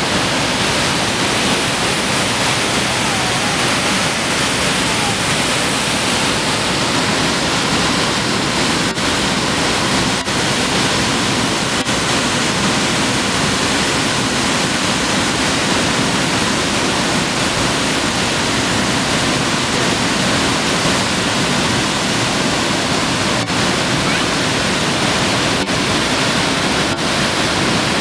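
High Force waterfall on the River Tees pouring its heavy flow into its plunge pool: a loud, steady rush of falling and churning water.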